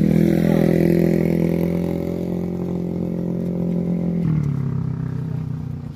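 Engine running at steady revs, its pitch dropping a little about four seconds in.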